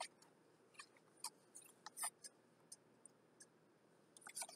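Faint, scattered small clicks and taps of hands handling and turning a small plant container, irregular and a few per second.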